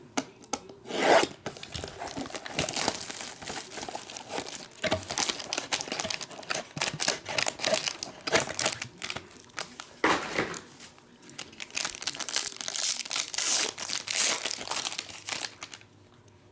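Trading card packs torn open by hand: the wrappers rip and crinkle in irregular bursts, stopping shortly before the end.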